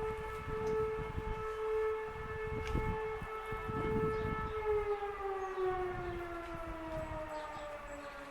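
Ergatec EWS 600 civil-defence siren holding a steady tone, then, about four and a half seconds in, its pitch starts falling steadily as it winds down.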